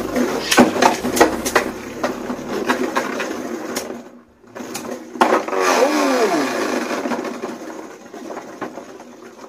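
Two Beyblade Burst tops, Death Solomon against Mirage Fafnir, spinning and clashing in a plastic stadium: a rattly whir with many sharp clicks as they collide in the first couple of seconds. About five seconds in comes a sharp knock, then a falling whine as a top winds down, and the whir fades.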